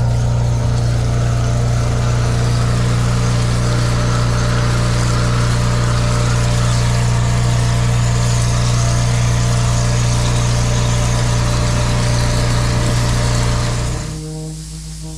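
Petrol-engined pressure washer running steadily while its lance sprays water in a hissing jet. Near the end the spray noise stops and the sound drops to a quieter steady hum.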